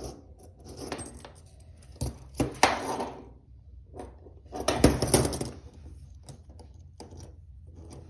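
Steel handcuffs being handled: sharp metallic clinks and short bursts of jangling. There is a clink at the start, a bout of jangling around two to three seconds in and the loudest bout around five seconds in, followed by a few faint clicks.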